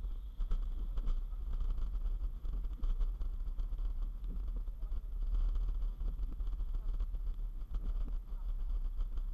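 Steady low rumble of a moving vehicle carrying the camera along a wet road at night, mostly wind and road noise with a faint hiss above it.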